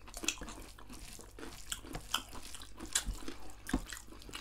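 People eating with their hands: a string of short, irregular wet clicks and smacks from chewing, and from fingers working rice and meat on steel plates.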